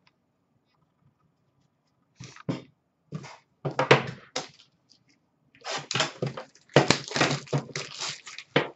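Clear shrink-wrap plastic crinkling and tearing as it is pulled off a sealed trading-card box, in irregular crackling bursts that start about two seconds in and grow busier and louder toward the end.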